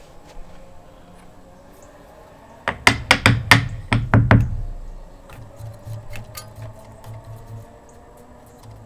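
A quick run of about eight sharp knocks and clatter, a little under halfway in, from tools and small mower parts being handled and set down, followed by a few fainter knocks.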